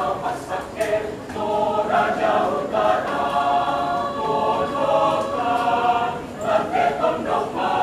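Mixed choir of women's and men's voices singing in parts, holding long chords in the middle, with shorter syllables near the start and end.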